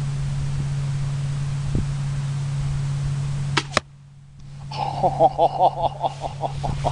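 Barnett Ghost 350 crossbow fired, its sharp release click followed about a fifth of a second later by the bolt striking the target, over a steady low hum. Right after comes a rapid run of short pitched calls, about five a second, that fade out.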